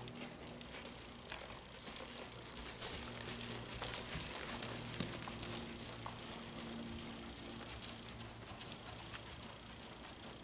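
A horse's hooves striking soft arena sand as it walks, in irregular, muffled footfalls, with a low steady hum underneath.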